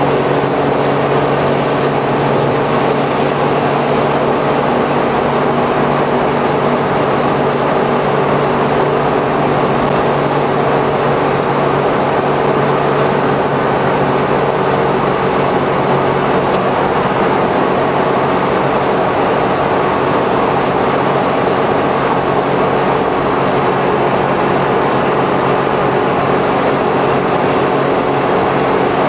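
Cabin running noise of a Suzuki Every kei van with Auto Gear Shift and a 660 cc three-cylinder engine, cruising steadily at expressway speed. The noise is a steady engine drone with a low hum, under tyre noise from the wet road.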